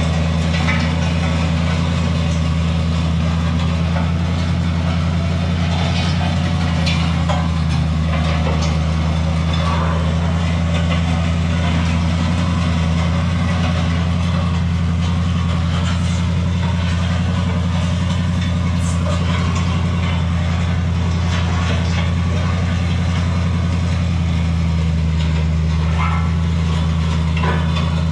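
Pickup truck engine running steadily at low speed while towing a steel I-beam land plane, with gravel crunching and small stones clicking as the plane scrapes along the road surface.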